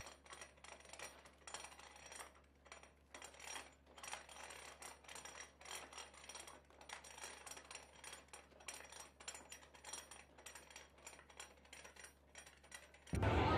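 Faint, irregular clicking and rattling from a wooden floor loom as the woven scarves are unrolled off its cloth beam.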